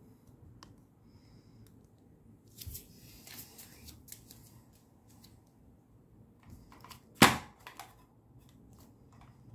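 A single sharp knock about seven seconds in as a bare foot steps onto a glass bathroom scale, followed by a few small clicks, with light rustling earlier.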